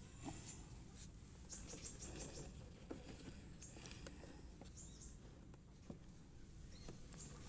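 Near silence: faint room tone with scattered small ticks and a few brief, faint high chirps.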